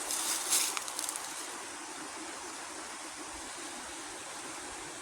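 Steady rushing of a creek, an even wash of water noise, with a few brief rustles in the first second.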